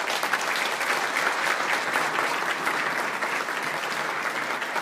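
Audience applauding: many people clapping steadily at the end of a speech.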